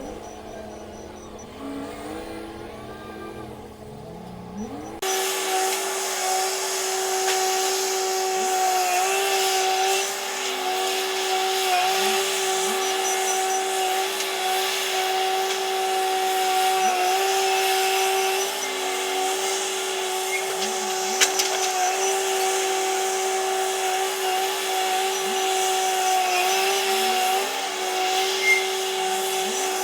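Heavy machinery running with a steady, high whine and small repeated dips in pitch, most likely the Komatsu WA500 wheel loader working. The sound changes abruptly about five seconds in and grows louder.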